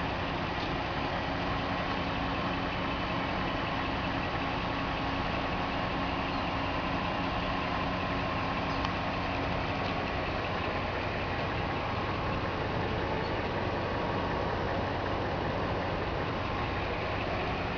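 Cadillac 4.6-litre Northstar DOHC V8 idling steadily with the hood open.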